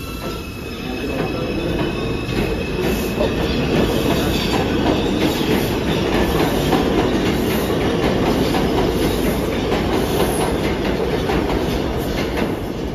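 New York City subway train on the IRT Lexington Avenue line, running loud and steady in the station with a dense rumble and rapid wheel clatter. There is a thin, high wheel squeal over the first few seconds.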